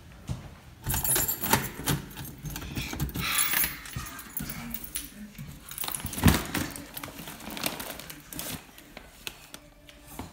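Keys jangling as an apartment door is unlocked and opened, among scattered clicks and rustles, with one heavy thud a little after six seconds in.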